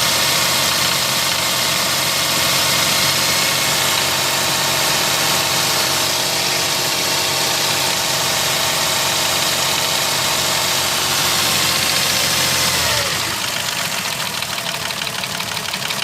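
Mercedes-Benz M112 V6 engine idling with a knock, the sign of scuffed cylinders and pistons. About thirteen seconds in, a whine falls in pitch and the sound drops a little, leaving a rapid, even ticking more distinct.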